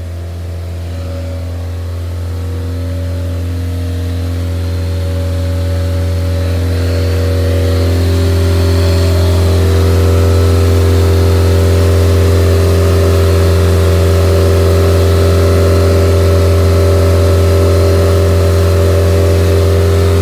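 Viking 130 four-cylinder aircraft engine idling steadily just after its first start, being let warm up to temperature. It grows louder over the first several seconds, then runs evenly.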